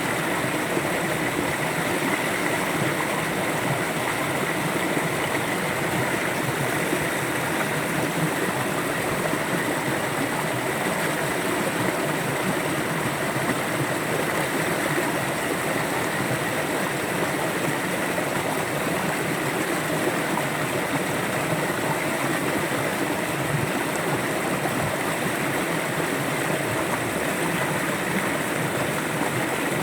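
River water flowing steadily over rocks, a constant even rush without changes.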